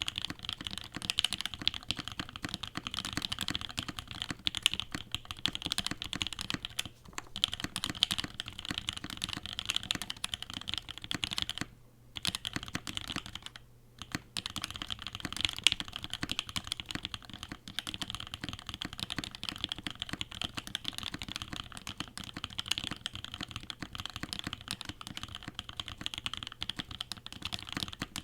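Fast, continuous typing on a CannonKeys Savage65 custom mechanical keyboard with tactile Halu Halo switches, FR4 plate and GMK keycaps; the switches are very overlubed. Typing stops briefly about seven seconds in and twice around twelve to fourteen seconds in.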